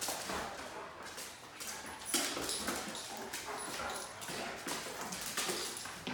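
Great Danes and other dogs playing on a hard tile floor: many quick claw clicks and scrabbles, with short dog sounds mixed in.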